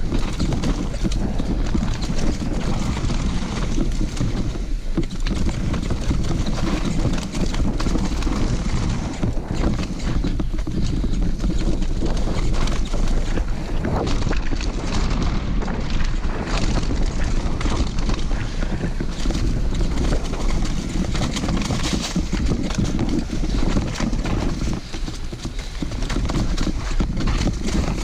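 Downhill mountain bike ridden over rough trail: steady wind noise on the microphone with continuous rattling and clatter from the bike.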